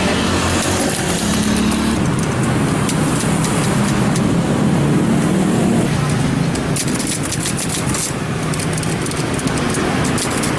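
Road traffic: a motor vehicle running close by, steady and loud, with a run of rapid clicks in the last few seconds.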